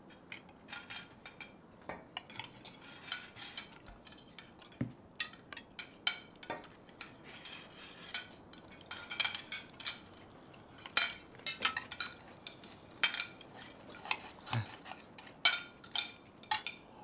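Knives and forks clinking and scraping on dinner plates as several people eat at once, in short irregular clicks that grow louder and more frequent in the second half.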